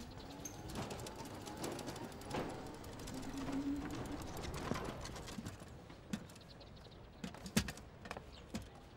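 Electric cargo tricycle rattling and clicking as it rides along a street, with a few sharp knocks in the last few seconds as it pulls up and stops.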